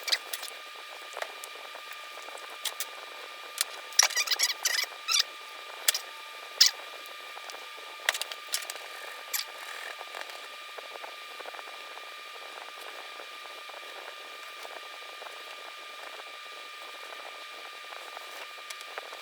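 Light intermittent clicks and scrapes of two-part epoxy being mixed and dabbed onto the seams of a 3D-printed part, fading out about halfway through. A steady faint high-pitched hum runs underneath.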